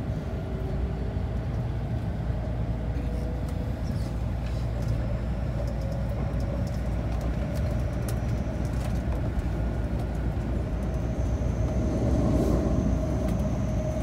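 Inside a Toei Shinjuku Line subway car in motion: steady rumble of wheels on the track with a constant mid-pitched hum. A faint high electrical whine joins about three-quarters of the way through.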